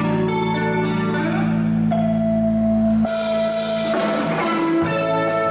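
Live band of electric keyboard, electric guitars and drum kit playing an instrumental tune. A held low chord breaks off about three seconds in with a cymbal crash, and the band picks up again.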